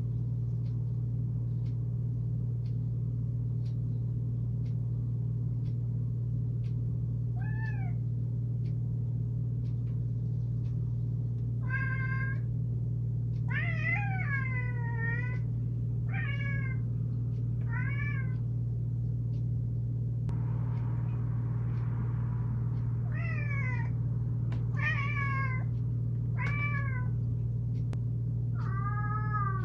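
Long-haired tabby cat meowing about nine times, complaining for its owner who is out of sight, some calls drawn out and bending up and down in pitch. A steady low hum runs underneath throughout.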